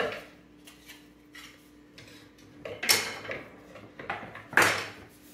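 Kitchen utensils clattering and knocking as wooden spoons are fetched for tossing a salad-style mix, with a few light clicks and louder clatter about three seconds in and again near the end.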